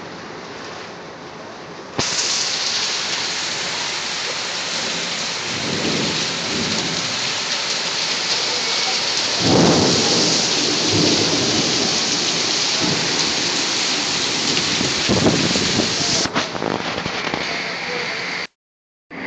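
Torrential rain pouring down in a dense, steady hiss that jumps much louder about two seconds in. Low rumbles of thunder swell up several times through the middle, and the sound cuts off abruptly for a moment near the end.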